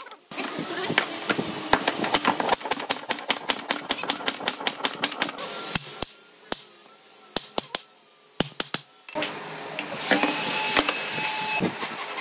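Wooden mallet knocking pine pieces together to seat a tenon in its slot: quick runs of sharp knocks, several a second, with a quieter stretch around the middle. A steady whining tone sounds for about a second and a half near the end.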